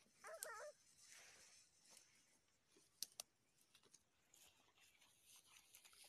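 A short, wavering animal whine in the first second, over faint outdoor quiet, with two sharp clicks about three seconds in.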